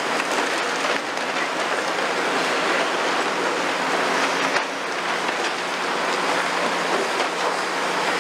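Caterpillar demolition excavators breaking down a concrete building: a steady, dense crunching and rattling of broken concrete and masonry over the low hum of the diesel engines.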